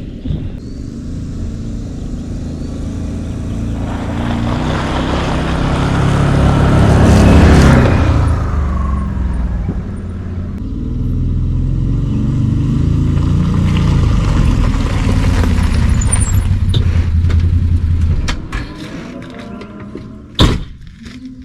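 A vehicle engine running, getting louder and changing pitch over the first several seconds, dropping back about ten seconds in, then running steadily before dying away near the end. A single sharp knock follows shortly after.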